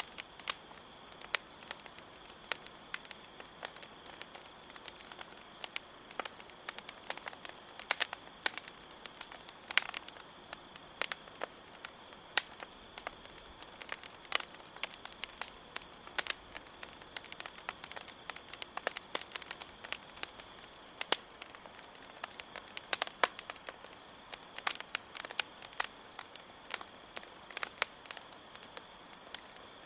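Wood fire crackling, with irregular sharp pops and snaps over a soft steady hiss, and crickets chirring in a steady high trill underneath.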